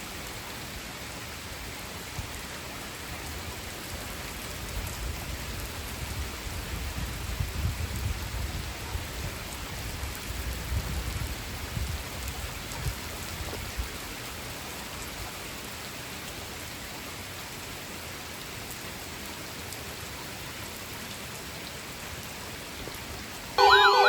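A steady rain-like hiss, with a low rumble swelling and fading in the middle. Near the end a loud, warbling siren-like alert tone cuts in suddenly.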